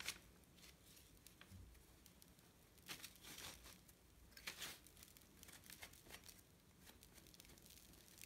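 Faint cloth rubbing in a few short scrubbing strokes: a rag being worked inside the splined bore of a BMX crank arm to clean out the dirt.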